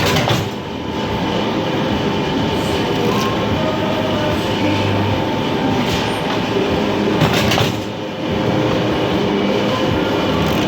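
Automatic krupuk (cracker) making machine running: a steady mechanical clatter and hum with a constant whine, and a few sharp clanks, one at the start and one about seven seconds in.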